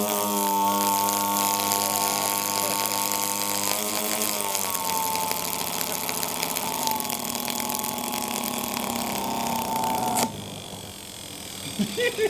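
A shop vacuum's brushed motor running with a loud whine that drops in pitch about four seconds in and sags again, then cuts out suddenly near the end as the motor dies. The owner puts the failure down to a shorted commutator winding. A few short knocks follow.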